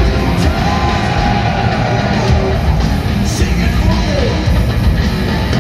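Heavy metal band playing live in a stadium, heard from the audience: loud distorted electric guitars over bass and drums, with the crowd yelling along. A guitar note slides down in pitch about four seconds in.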